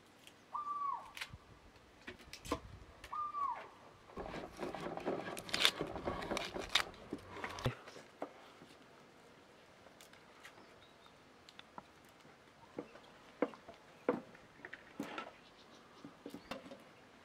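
Scattered clicks, taps and light clatter of hands preparing vegetables: a knife working on onions and on a plate, with bowls and a plastic colander handled. A busier stretch of handling comes a few seconds in and ends abruptly. Two short falling bird calls sound about one and three seconds in.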